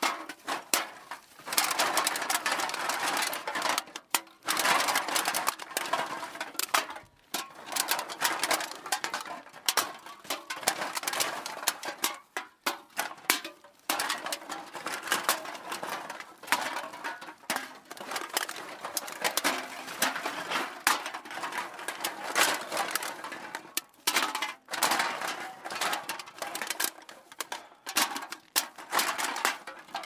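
Glass bottles and cans clattering and rattling together as they are put into a bag, a dense run of clinks and knocks with a few brief pauses.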